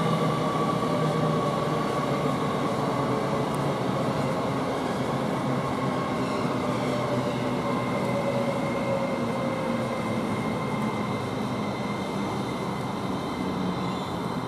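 Avanti West Coast Class 807 electric multiple unit running in to stop, with a steady electric traction whine that slowly falls in pitch as it slows, over a wash of train running noise.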